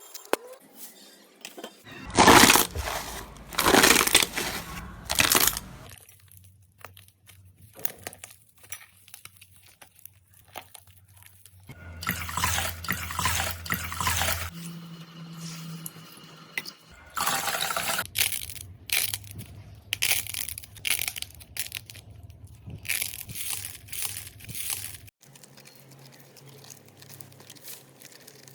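Slime being squished and handled, making wet crackling and popping sounds in a string of separate takes that change every few seconds.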